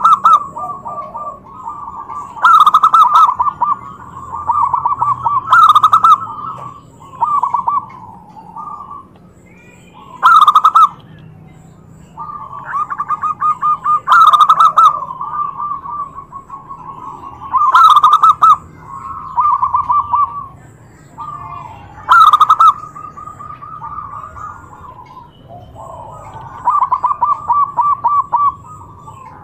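Zebra dove (perkutut) song: loud, rolling cooing phrases, each a quick pulsed trill lasting one to three seconds and often opening with a sharp note, repeated every few seconds.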